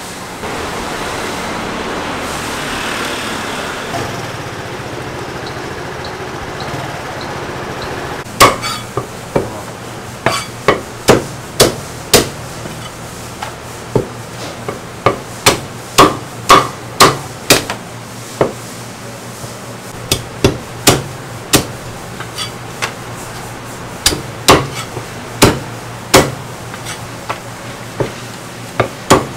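Heavy Chinese cleaver chopping roast meat on a thick round wooden chopping block: sharp, irregular chops, sometimes in quick runs of two or three, starting about eight seconds in. Before that, only a steady background noise.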